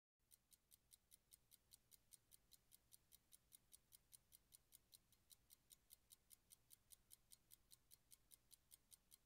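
Faint, even ticking, about five sharp clicks a second, over a low hum.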